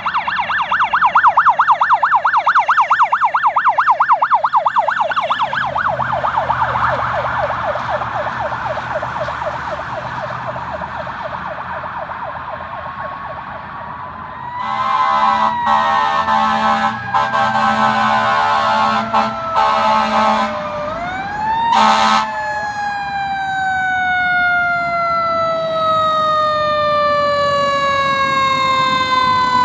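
Responding fire apparatus sirens: a rapid yelp that fades over the first dozen seconds, then a string of horn blasts about halfway through over a falling wail. Near the end a siren rises briefly, there is another blast, and then it winds down in one long, slowly falling tone.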